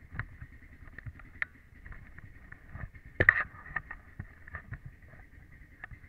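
Handling noise on a helmet-mounted camera as the motocross helmet is picked up and put on: rubbing and scraping with scattered light knocks and one louder clatter a little past the middle, over a faint steady high tone.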